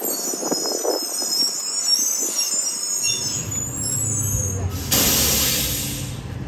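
Garbage truck squealing high for about three seconds, then its engine idling low, with a sharp burst of air-brake hiss about five seconds in that fades over a second.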